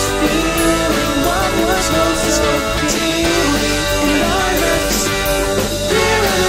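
Rock music playing, with a melodic line that bends up and down in pitch over the full band.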